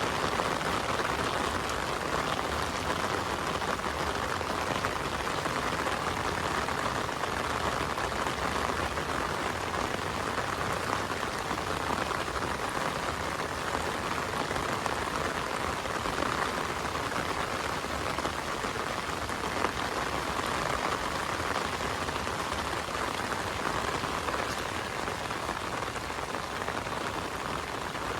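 Heavy rain falling steadily: a dense, even patter with no let-up.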